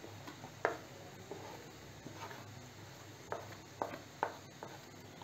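A few short, light taps of a plate or spoon against a frying pan as leftover dry spice stuffing is tipped from the plate into the pan's masala; about five taps, the loudest about half a second in.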